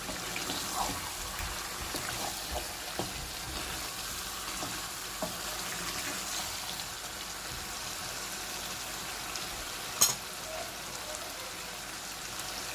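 Chicken bhuna curry sizzling steadily in the pan over medium heat, with small pops, and one sharp clink about ten seconds in.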